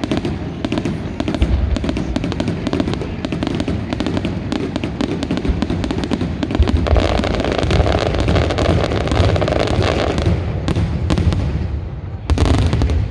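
Fallas fireworks going off in a dense, continuous barrage of rapid cracks and bangs over a heavy rumble, easing briefly near the end before another loud burst.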